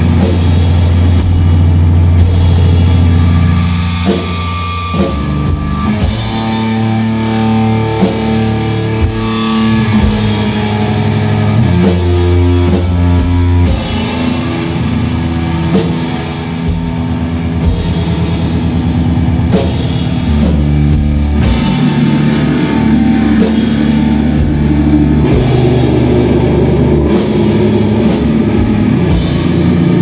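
A metal band playing live: distorted electric guitar, bass and a drum kit in a heavy doom metal passage, with long held low notes and scattered drum hits.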